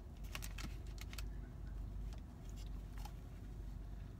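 Aluminium foil taco wrapping crinkling in quick crackles, a cluster in the first second and another about three seconds in, over the steady low rumble of the car.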